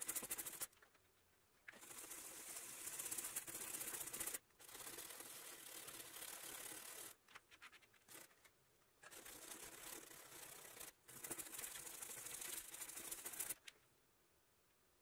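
Stiff plastic-bristled scrub brush scrubbing rust stains off a small wet white plastic ring, a rough scratchy rasping in bursts of a few seconds with short pauses. It stops near the end.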